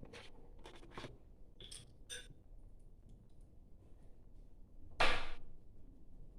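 A spoon clinking lightly against a dish a few times as teaspoons of honey are added to the mixture, one clink with a short ring about two seconds in, then a louder half-second scrape about five seconds in.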